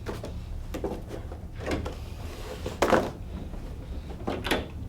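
Handling noise: a few light knocks and rustles, the loudest about three seconds in, over a steady low hum.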